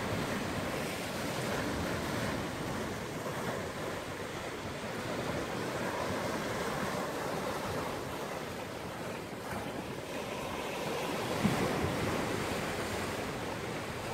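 Ocean waves breaking and washing over shoreline rocks: a steady rushing surf that swells and eases.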